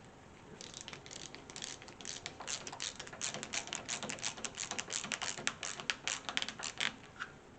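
Screwdriver driving the new deadbolt latch's screws into the door edge, clicking rapidly and irregularly for about six seconds.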